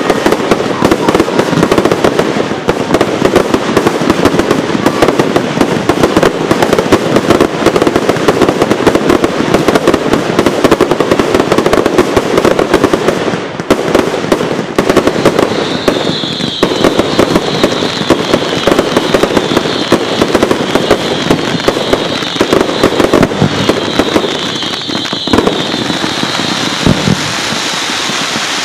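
Fireworks going off in a dense, unbroken barrage of rapid pops and crackles. About halfway through, a higher hissing sizzle rides on top for around ten seconds.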